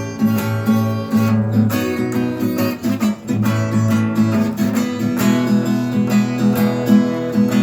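Acoustic guitar strummed steadily in a regular rhythm, the instrumental intro of a song with no singing yet.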